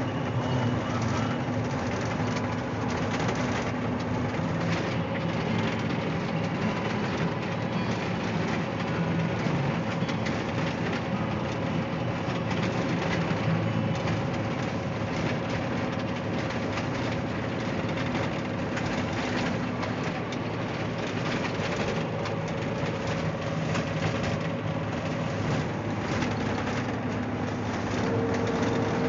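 Heavy truck's diesel engine running steadily under way, heard from inside the cab, with road noise and light rattling. The engine note drops a little near the end.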